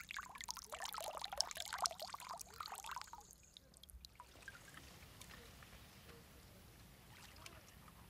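Water splashing and trickling as a sandfish sea cucumber is lifted out of a shallow pool, squirting out a jet of water. It stops about three seconds in, leaving a faint steady hiss.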